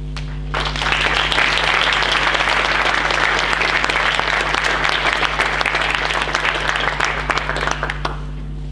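Audience applauding in a conference hall, starting about half a second in and dying away near the end, over a steady electrical hum.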